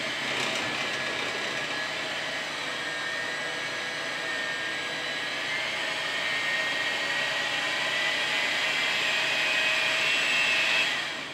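Black+Decker electric hand mixer running with its beaters in cake batter in a glass bowl: a steady motor whine with a whirring churn. The whine rises slightly in pitch and stops suddenly near the end.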